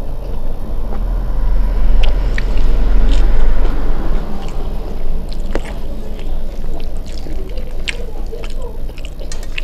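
Close-up eating sounds of a person chewing rice with dal and bamboo-shoot fry, with wet mouth clicks and the squelch of fingers mixing rice in a steel plate. A low rumble sits under it, strongest in the first half.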